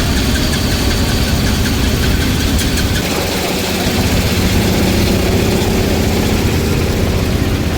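Car engine idling with a low, steady rumble, settling into a smoother, evenly pitched hum about three seconds in.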